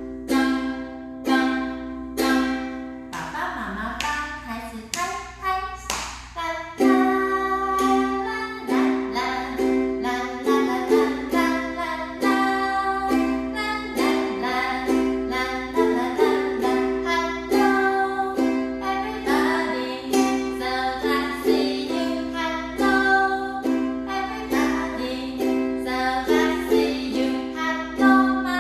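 Ukulele strumming chords in a steady rhythm, played as an accompaniment for children to clap along to.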